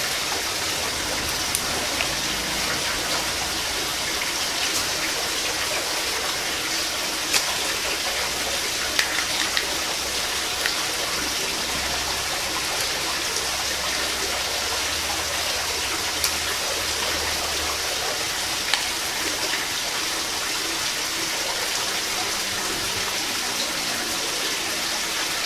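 Steady rushing of water, with a few short clicks of mussel shells being handled and pried open.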